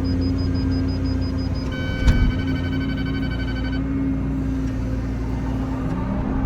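Excavator's diesel engine running steadily, with a laser grade receiver beeping rapidly and then switching to a steady tone for about two seconds. A single knock just after the tone starts.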